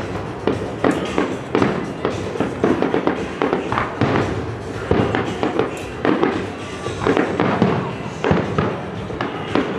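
Aerial fireworks bursting in rapid succession, overlapping bangs and crackles several times a second over a continuous rumble.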